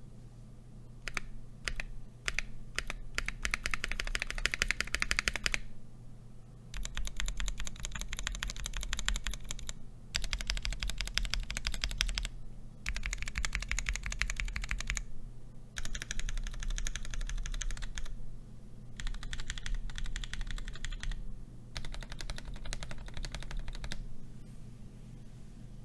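Fast typing on a modded Portico mechanical keyboard fitted with Durock POM Sunflower tactile switches, in runs of a few seconds broken by short pauses.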